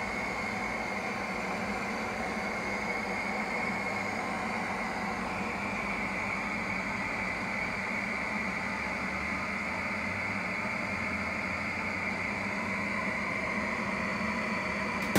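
A steady mechanical hum with a hiss.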